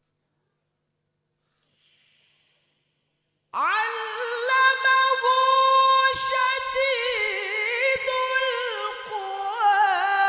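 Silence, then about three and a half seconds in a male qari starts a Quran recitation phrase in a high, loud voice over a microphone. He holds one long high note before moving into wavering, ornamented turns of pitch.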